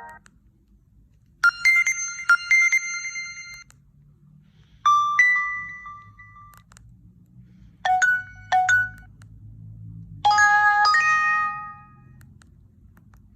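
Nokia C2-01 mobile phone playing four short alert tones one after another, each a brief chime of a few bright notes with a pause before the next.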